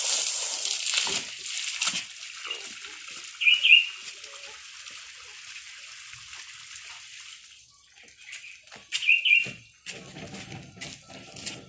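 Garden hose spraying water over rose bushes, a hiss of spray that fades out over the first couple of seconds. Two short high chirps follow, a few seconds in and again near the end.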